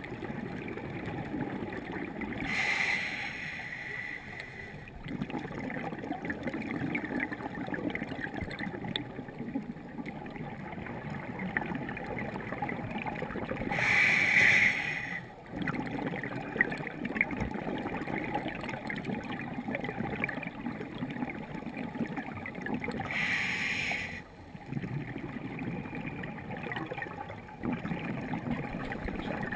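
Scuba breathing heard underwater: a regulator hissing in three louder breaths about ten seconds apart, with exhaust bubbling and a steady crackling water background between them.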